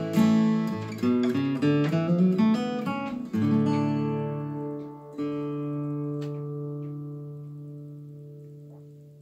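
2017 Martin 000-18 acoustic guitar being played: a quick run of picked notes and chords, then chords struck about three and five seconds in, the last left to ring and slowly fade.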